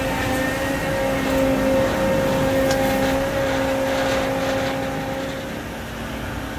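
Heavy diesel truck engines of a concrete mixer truck and a truck-mounted concrete pump running steadily while concrete is discharged into the pump's hopper, easing slightly near the end.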